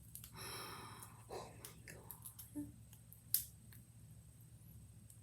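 Faint plastic rustling, then scattered small clicks as a Tangle fidget toy is handled; the sharpest click comes about three and a half seconds in.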